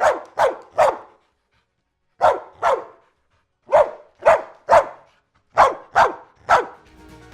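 Dog barking: about eleven loud barks in groups of three, two, three and three, with silent gaps between the groups.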